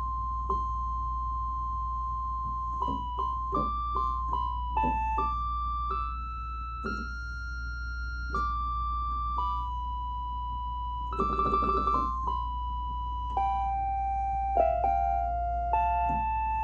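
Electronic keyboard playing a slow single-note melody of steadily held notes, with a quick flurry of rapid notes about eleven seconds in, over a steady low hum.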